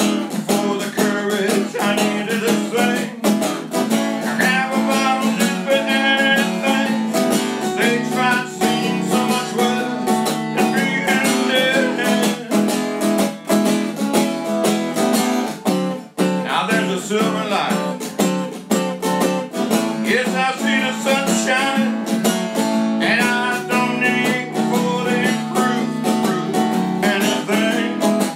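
Epiphone acoustic guitar strummed steadily in a country-style rhythm.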